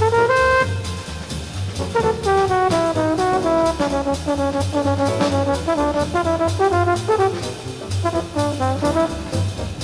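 Trombone playing a fast bebop jazz solo in running lines of quick notes, with a short break about a second in. Behind it a double bass walks and drums keep time.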